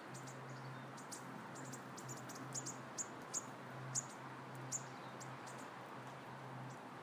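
Brief, high-pitched chirps coming irregularly, a few to the second at times, over a steady low hum and faint hiss.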